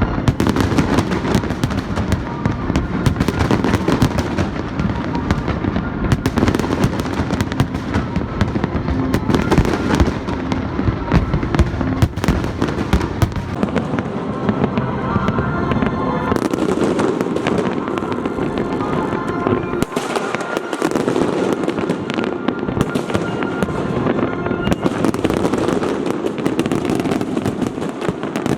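Fireworks display: shells bursting and crackling in rapid, continuous succession, the deep booms easing off in the last third while the crackling goes on.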